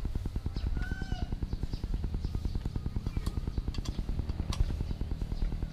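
A small engine idling steadily with a rapid, even pulse.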